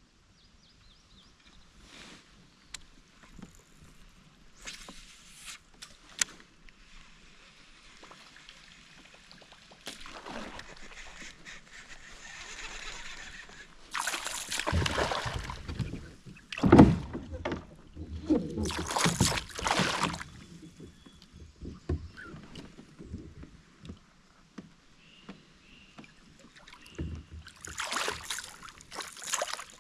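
River water splashing and sloshing in irregular bursts, loudest about halfway through and again near the end.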